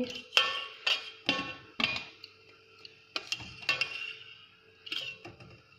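Steel slotted spoon clinking against the rim and sides of a stainless steel pot as boiled rolls are scooped out of hot water. There are about eight irregular metallic clinks, each ringing briefly.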